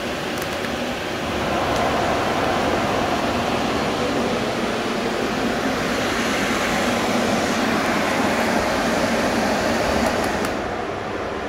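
An XPOWER carpet air mover and an axial drum fan blowing with a steady rush of air. After a click, the rush grows louder about a second and a half in as a fan is switched up, then drops back near the end after another click as the air mover's speed dial is turned down.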